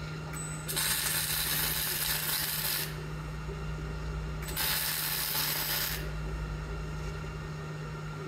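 MIG welder arc crackling in two bursts, about two seconds and then a second and a half, as a nut is welded onto a rounded-off bolt head at high output. A steady low hum runs underneath.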